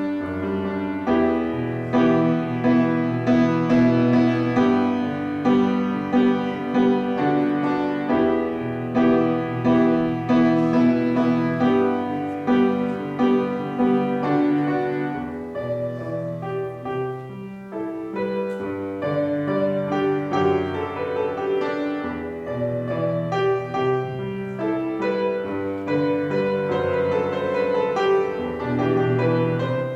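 Solo piano playing a well-known Chinese song, notes struck in flowing phrases that swell and ebb, with a softer stretch just past the middle.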